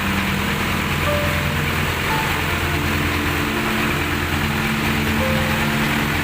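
Colt Diesel 100 PS engine running steadily with an even, fast firing pulse, powering a well-drilling rig.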